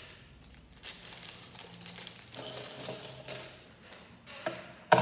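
Thin plastic Lego parts bag crinkling as it is torn open and handled, with a short louder sound right at the end.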